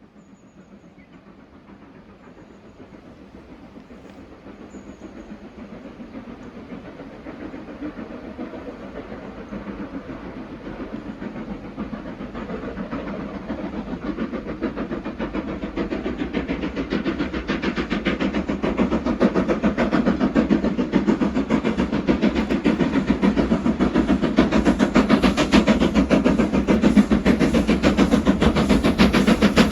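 LNER K1 class 2-6-0 steam locomotive 62005 approaching under steam, its rapid chuffing exhaust beats growing steadily louder as it draws near.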